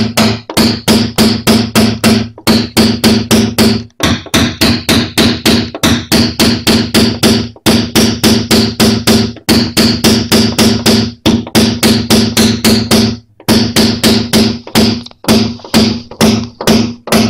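A small hammer tapping a brass knockdown punch against a Lada Granta's steel front wing, about four or five taps a second in runs broken by brief pauses, each tap making the panel ring. High spots in the metal are being knocked down to relax it during paintless dent repair.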